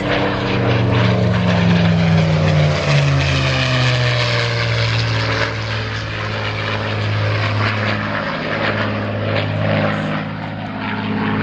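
Supermarine Spitfire's Rolls-Royce Merlin V12 engine and propeller in flight, a deep drone that drops in pitch over the first few seconds as the aircraft passes, then holds a steady note.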